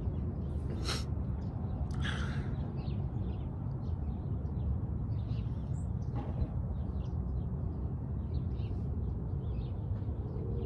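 Scattered bird calls over a steady low rumble.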